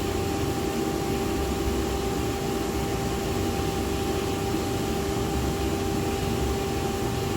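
Commercial boiler burner firing steadily with a constant hum and rush, set to low fire while its combustion is being set up.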